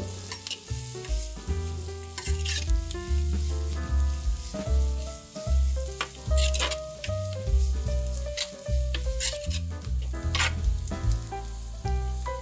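Sliced onions sizzling as they fry in hot coconut oil, with occasional scrapes of stirring in the pan. Background music with a repeating bass line plays over it.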